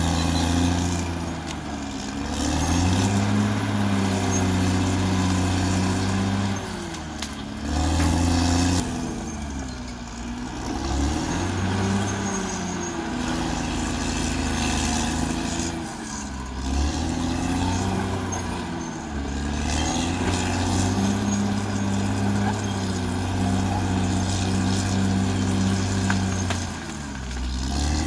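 Caterpillar D6R XL bulldozer's diesel engine working, its note sagging and picking up again every few seconds as the load comes and goes.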